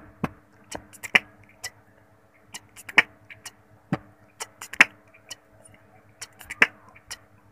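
Intro sound effects: a string of sharp clicks and knocks at uneven spacing over a steady low hum, several louder clicks near the middle and toward the end.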